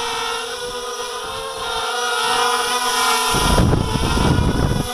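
A 250-size FPV racing quadcopter's motors and propellers whining steadily in several tones. About three seconds in, as it flies low overhead, a loud low rush of prop wash and wind hits the microphone, and it drops away near the end.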